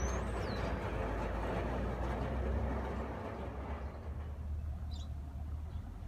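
Low, steady diesel rumble of snow-plowing machinery working the street, with a broader rushing noise that fades out about halfway through. Two short high chirps, one just after the start and one near the end.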